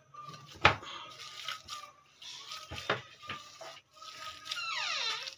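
Hands mixing mashed boiled potato and grated onion in a glass bowl, with a few sharp knocks against the glass, the loudest about a second in. Near the end a whistle-like tone slides down and back up.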